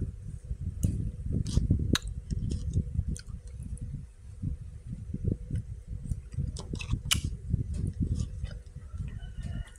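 A metal spoon scooping and stirring in a plastic cup of black bean sweet soup: sharp clicks of the spoon against the cup now and then, over a run of low, irregular thumps. A faint steady hum underneath.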